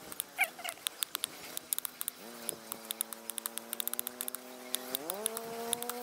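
Knife cutting small pieces of partridge meat against a wooden tree stump: a run of sharp clicks and taps of the blade on the wood. About two seconds in, a long steady droning tone with a low pitch starts under the clicks and holds for several seconds, stepping up in pitch about a second before the end.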